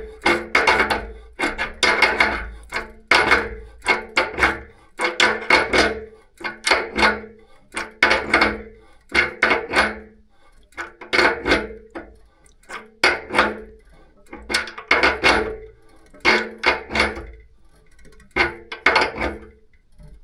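Spanner tightening a radiator valve fitting: a burst of clicking and clinking about once a second as each stroke turns the nut, with a brief ringing tone in each burst.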